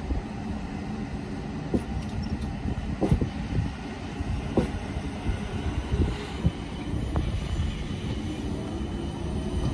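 South Western Railway class 455 third-rail electric multiple unit pulling away, a low rumble of the carriages rolling by with sharp knocks from the wheels on the track every second or so. A rising motor whine starts at the very end.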